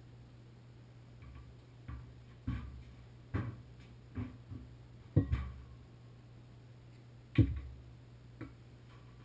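Irregular knocks and thumps, about eight in all, the loudest two a little past the middle and near the end, as a person moves about and handles tools at a tiled bathtub, over a faint steady low hum.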